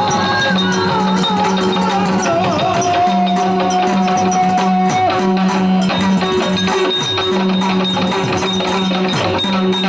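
Yakshagana music: the Bhagavata sings a wavering melodic line that settles into a long held note, accompanied by maddale drum strokes over a steady drone. The singing stops about six seconds in while the drumming goes on.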